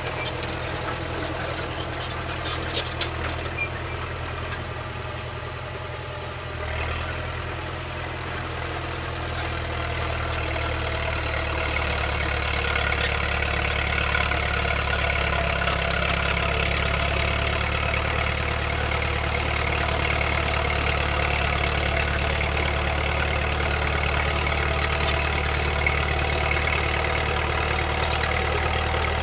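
Caterpillar D4C crawler dozer's diesel engine running steadily, growing louder over several seconds as the machine comes closer, then holding.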